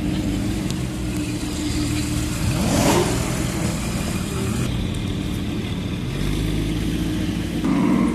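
Porsche 911 Targa's flat-six engine running as the car drives slowly past close by, its note rising and swelling about three seconds in as it pulls away. Near the end an Aston Martin Vantage Roadster's engine comes in as that car rolls up.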